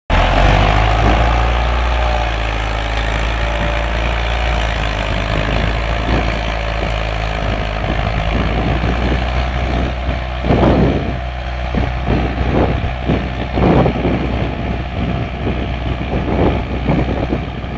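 David Brown 1290 tractor's four-cylinder diesel engine running steadily at a working speed. From about halfway through, irregular knocks and rattles join in over the engine.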